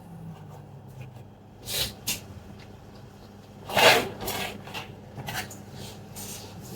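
Short rubbing and scraping handling noises on a workbench, a few brief swishes with the loudest about four seconds in, over a faint low hum that sinks in pitch near the start.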